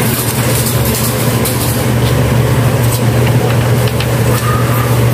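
Steady low mechanical hum at an even level.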